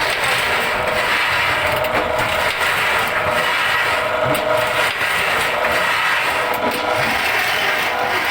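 Motorised wood-shaving machine running and shaving sappanwood into very thin shavings: a steady motor whine under continuous scraping of the blade on the wood.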